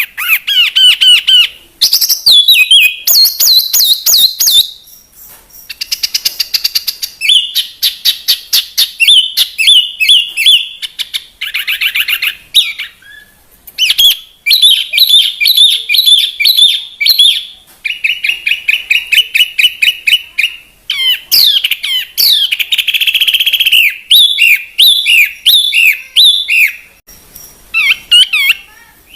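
Songbird song of the kind played as masteran to tutor caged birds: fast, varied phrases of rapid trills and chirps, with short breaks between phrases.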